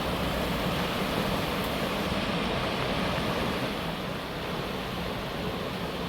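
Steady rushing of a creek in flood, the swollen Tiefenbach running high over its banks; it eases slightly about four seconds in.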